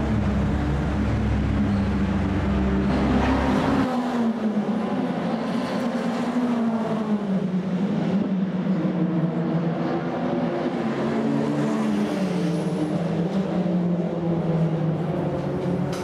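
Porsche 911 flat-six engines running at idle with light revs. The note is steady with a deep rumble at first, changes abruptly about four seconds in, and then slowly falls and rises in pitch.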